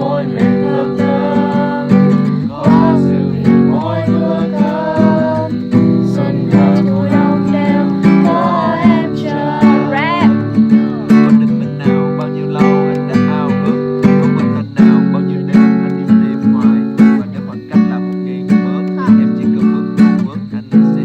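Acoustic guitar strummed steadily, accompanying a voice singing a melody.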